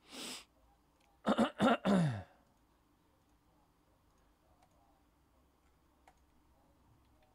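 A man breathes out, then makes a few short, throaty vocal sounds with falling pitch about a second in; after that only faint, scattered clicks.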